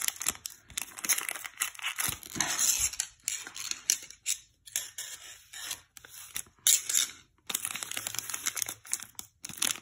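Plastic wrapper of a Donruss basketball card pack crinkling and tearing as it is worked open, in irregular bursts with short gaps.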